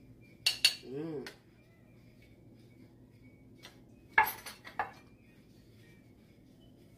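Metal spoon clinking twice against a ceramic plate, a short hummed "mmm", then a quick cluster of louder clinks of cutlery and plate a little past four seconds in.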